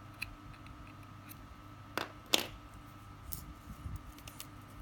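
Small snips cutting the tag end of a fishing line at its knot: two sharp snips about two seconds in, the second louder, followed by a few faint ticks.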